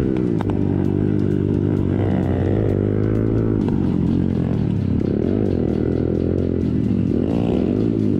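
Off-road motorcycle engine revving up and down as it is ridden around a dirt track, its pitch rising and falling with the throttle, heard close from the bike carrying the microphone.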